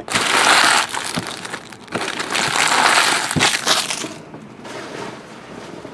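Empty foil trading-card pack wrappers crinkling as they are gathered up and crushed by hand. It comes in two bursts: one in the first second, and a longer one from about two to four seconds in.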